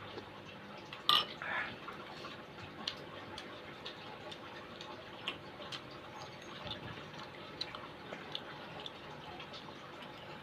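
Mukbang eating sounds: soft scattered clicks of chewing and a utensil working in a bowl of soto, with one louder clack about a second in.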